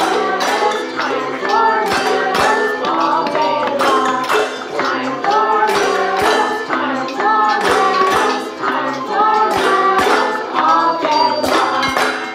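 Children singing a simple song together while striking kitchen utensils (metal pots, cups, bowls and spoons) as percussion, a quick steady rhythm of metallic clanks and jingles under the voices.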